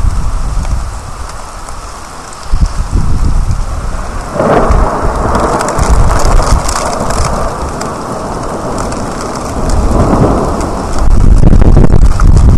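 Thunder rolling over steady rain, the rumble swelling in waves and loudest in the last second or two.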